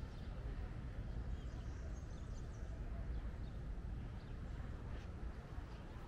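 Outdoor park ambience: a steady low rumble with a few faint bird chirps now and then.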